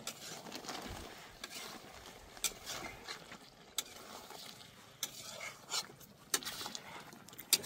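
A spoon stirring and scraping mutton pieces in a steel kadhai on a gas stove, in several separate strokes, over a faint sizzle. The meat is frying in oil and in the water it has released, before the spice paste goes in.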